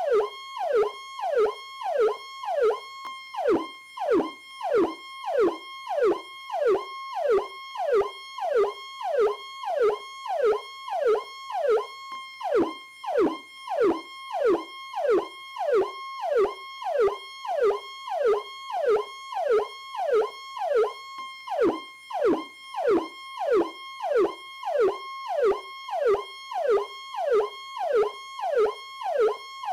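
Federal Signal PowerCall electronic police siren sounding continuously: a high held tone that falls sharply in pitch, repeating about one and a half times a second.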